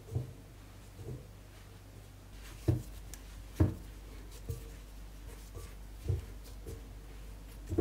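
Pizza dough being mixed by hand in a glass bowl: flour rubbing, with dull thumps of hand and dough against the bowl roughly every half-second to second, two louder knocks near the middle.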